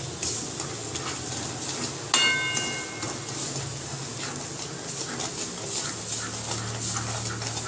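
A spoon stirring and scraping a thick, pasty sugar, gram-flour and coconut mixture around an aluminium kadai, in short irregular scrapes. About two seconds in, a single metallic clink rings for about a second.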